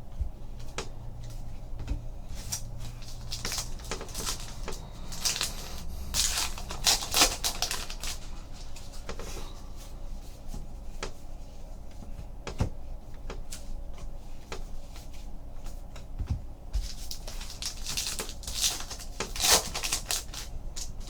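Trading card packs and cards being handled: wrappers crinkling and tearing and cards sliding against each other, with scattered light clicks. The crinkling comes in two bouts, one in the first half and one near the end.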